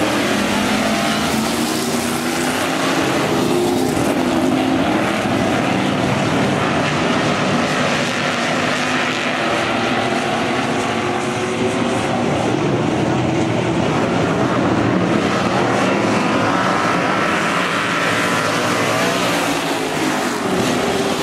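A pack of eight-cylinder dirt-track stock cars racing at full throttle. Their engine notes overlap and rise and fall in pitch as they rev through the turns and pass by.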